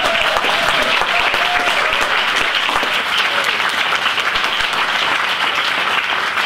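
An audience applauding, many hands clapping at once in a dense, steady patter.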